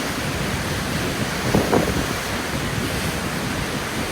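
Vernal Fall's steady rush of falling water and spray, with wind buffeting the microphone; a brief louder bump about halfway.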